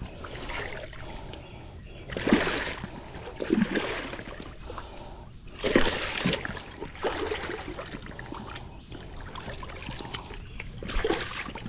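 Large hooked catfish thrashing in shallow water at the bank, splashing in several bursts, the loudest about two seconds in and again about six seconds in.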